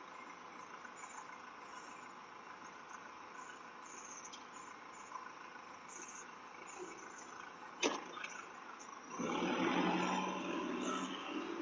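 Faint steady outdoor background through a doorbell camera's microphone, a single sharp click about eight seconds in, then from about nine seconds a louder rough rumble of the UPS delivery truck's engine.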